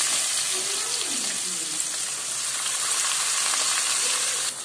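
Hot oil sizzling steadily in a metal kadai as whole spices and chopped onion fry. The sizzle drops off sharply near the end.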